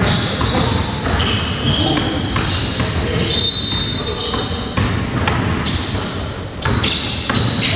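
Basketball game in a gym: the ball bouncing on the court and a few short, high sneaker squeaks, with players' voices in the background.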